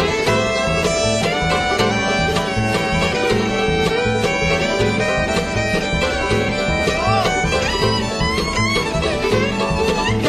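Acoustic bluegrass string band of fiddle, five-string banjo, mandolin, guitar and upright bass playing a fast instrumental breakdown live, over a steady plucked bass beat.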